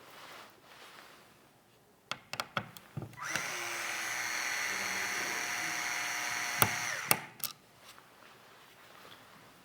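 Small electric screwdriver running for about four seconds: its motor whine rises as it spins up, then holds steady and stops. Sharp clicks and taps of hardware being handled come before and after it.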